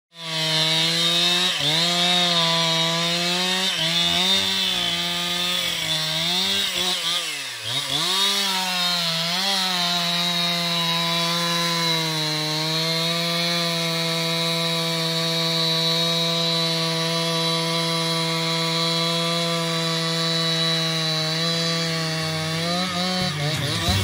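Two-stroke chainsaw running at full throttle while cutting through a fallen conifer trunk. Its engine pitch sags briefly a few times as the chain bites into the wood, most deeply about seven and a half seconds in, then holds steady under load through the cut.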